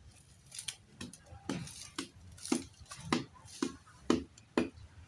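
Dry bamboo and brush cracking and snapping in a run of about nine sharp cracks, roughly two a second, growing louder toward the end.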